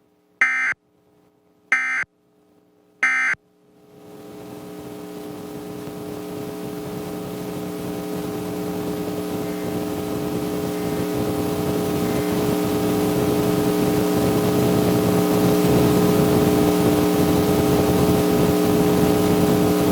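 Emergency Alert System end-of-message code: three short warbling data bursts about 1.3 seconds apart, closing the nationwide test. A steady electrical buzz with hiss then starts about four seconds in and grows slowly louder.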